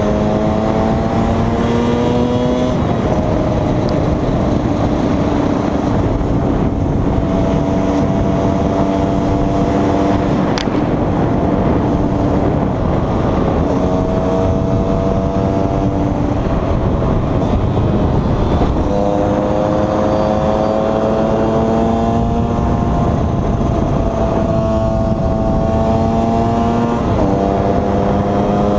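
KTM 125 EXC's two-stroke single-cylinder engine under way on the road: its pitch climbs in a gear, then drops back at each shift, with stretches held at a steady pitch while cruising.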